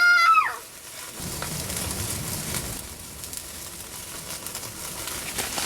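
Food frying with a steady sizzle. A high, drawn-out call from a voice fades out about half a second in.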